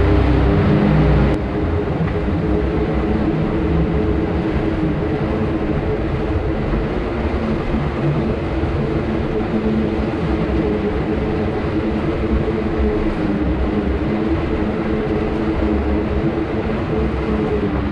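Side-by-side UTV engine running steadily at low speed, with a low rumble from the tyres rolling over rough ground, inside a rock mine tunnel.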